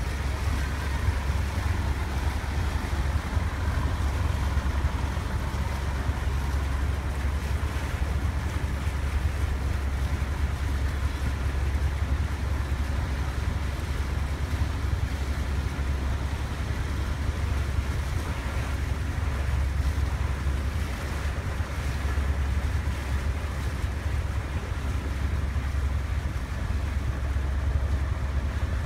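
Steady low rumble of a boat under way, with wind buffeting the microphone and water washing past.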